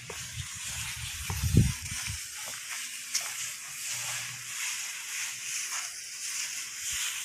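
Outdoor ambience: a steady hiss, with a short low rumble about one and a half seconds in.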